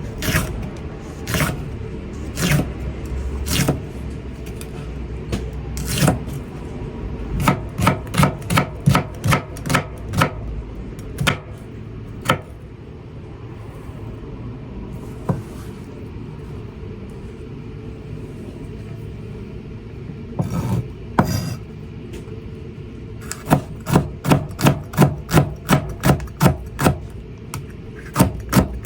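Kitchen knife slicing green peppers on a cutting board, each stroke a crisp crunch ending in a tap on the board. The strokes come singly at first, then in quick runs of about three a second, with a lull of several seconds near the middle. A steady low hum runs underneath.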